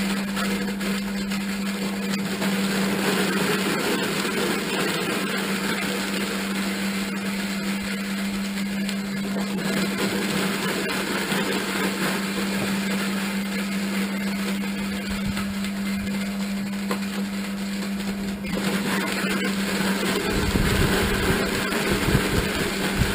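An electric motor running steadily with a constant hum and a rough churning noise. Heavier low knocks join in near the end.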